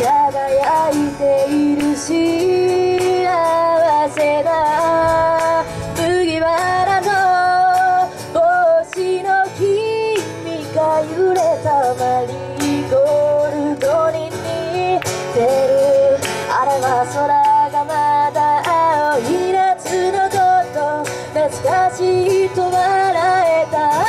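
A young woman singing a Japanese pop song, accompanying herself on an acoustic guitar.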